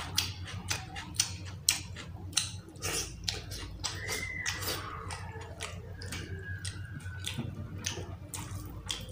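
Wet, sticky hand-eating sounds: fingers squishing rice into chicken skin curry, and mouth smacks while chewing, as irregular clicks two or three a second.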